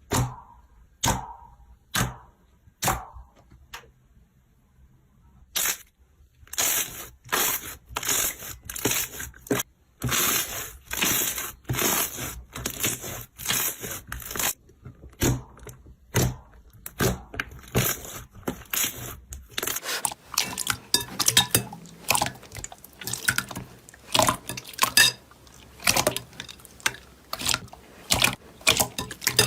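Hands squishing and poking slime: sticky, wet squelches and pops in quick repeated strokes. A few sparse clicks come first, the strokes grow denser, and in the last third they turn into many small crackling pops.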